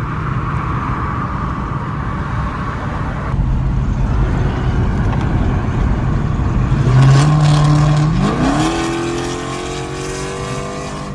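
Car engine running under way on the highway, then revving hard about seven seconds in, its pitch climbing steeply and holding high before easing off.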